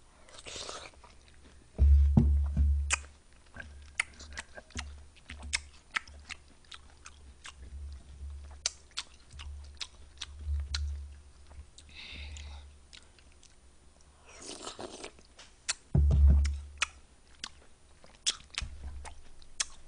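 Close-miked eating sounds of someone chewing and biting into pieces of fruit from a watermelon punch. Many small sharp clicks run throughout, with a soft low thump about two seconds in and another about four seconds before the end.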